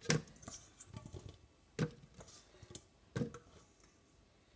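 Fresh strawberries dropped by hand into a plastic blender jug, landing as a string of separate short knocks, three of them louder than the rest.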